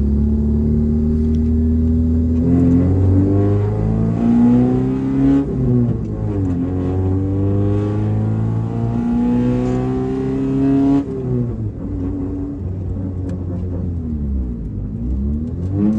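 1994 Honda Civic's four-cylinder engine pulling the car through the gears of its manual transmission: the engine note climbs steadily, then drops sharply at each upshift, about three times, before climbing again.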